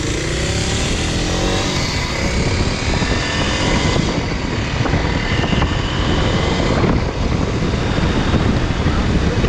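Dual-sport motorcycle under way, its engine running over a heavy, steady rush of wind and road noise. The engine pitch climbs in the first second or two.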